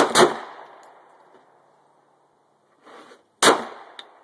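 Glock 17 9mm pistol shots: two in quick succession at the start and a third about three and a half seconds in, each trailing off in echo, with a fainter report just before the third.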